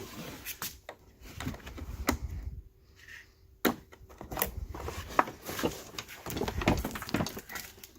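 Scattered clicks and knocks of the rear bumper cover and its wiring plug being handled, with one sharper knock about three and a half seconds in.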